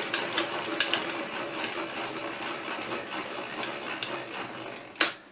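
Milling machine table traversing along its X axis: the leadscrew and gearing whir steadily with small irregular clicks, as during a dial-indicator check of vise alignment. The run ends about five seconds in with one loud sharp click.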